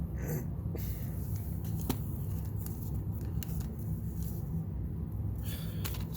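Trading-card stickers and wax pack wrappers being handled: scattered light clicks and brief paper rustles, about half a second in and again near the end, over a steady low hum.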